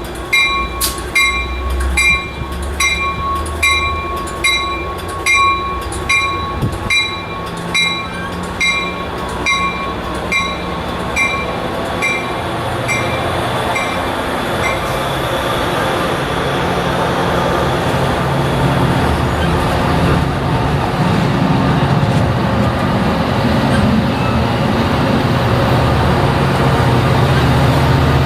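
A railroad bell striking steadily, about three strokes every two seconds, fading out about halfway through, while the rumble of a train grows louder, with a low engine drone building toward the end.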